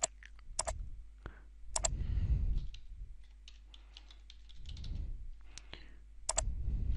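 Typing on a computer keyboard, a run of light key ticks, mixed with sharp mouse clicks that come in pairs near the start, about two seconds in and near the end.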